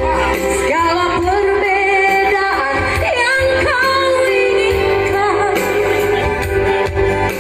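A woman singing a pop ballad into a handheld microphone over a backing track, her voice sliding between long held notes.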